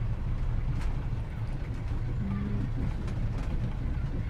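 Low, steady rumble of street background ambience, with a few faint short tones and light clicks over it.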